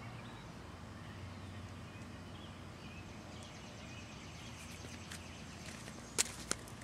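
Quiet outdoor background with a steady low hum, broken near the end by two sharp clicks in quick succession.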